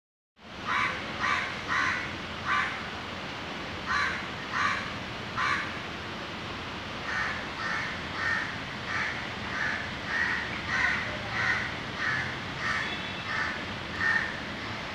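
A crow cawing over and over in short harsh calls: a few spaced calls at first, then a steady run of about one every two-thirds of a second from about halfway through.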